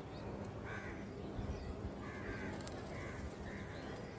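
Crows cawing: several short caws spread over the few seconds.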